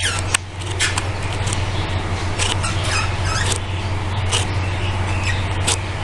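A colony of budgerigars chirping, with many short, high chirps overlapping, over a steady low hum.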